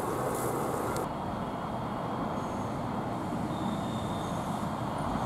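For about the first second, the steady hiss of a fire hose jet spraying water; then, after an abrupt change, the steady low rumble of fire engines running.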